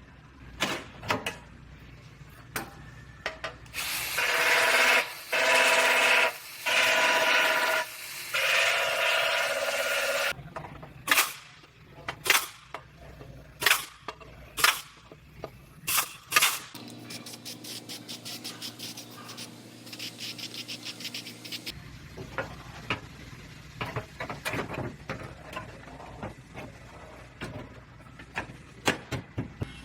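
Sheet-metal body repair on a car's quarter panel: a power tool whirs in four short runs, then a series of sharp hammer-like strikes ring out, followed by a steady machine hum and lighter rapid tapping near the end.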